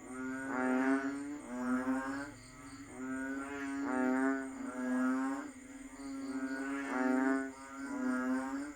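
Banded bullfrogs (Asian painted frogs) calling in chorus: a string of low, nasal bellowing calls, each lasting about a second, overlapping one after another.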